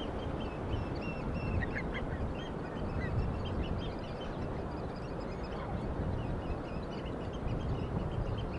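Many birds calling at the seaside, a dense chorus of short overlapping calls throughout, over a steady low rumble.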